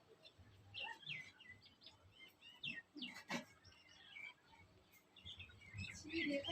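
Small birds chirping faintly with short, scattered calls, with a couple of sharp clicks about three seconds in.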